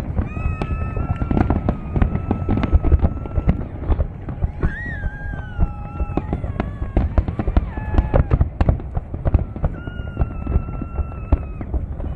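Fireworks display: a dense, irregular run of bangs and crackles. Several long, high whistling tones sound over it, one bending up and then down about five seconds in.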